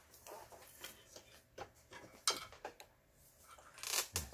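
Scattered small clicks and rustles of hands handling a sewing machine and its fabric, with a sharper click about two seconds in and a brief rustle near the end.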